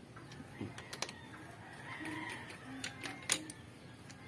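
A few sharp metal clicks of a socket wrench tightening the oil filter cover bolts on a Yamaha Sniper 155's engine, the loudest about three seconds in. A rooster crows faintly in the background around two seconds in.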